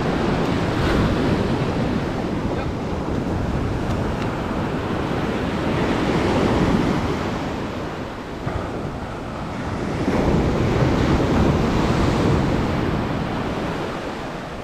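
Surf breaking on the beach, the wash swelling and easing every few seconds, with wind buffeting the microphone.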